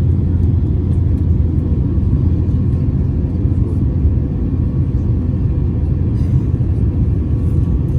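Steady low rumble of a large jet airliner's engines and airflow heard from inside the passenger cabin.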